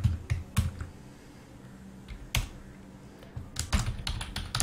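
Computer keyboard typing: a few separate keystrokes near the start, a single one a little past the middle, then a quick run of several near the end.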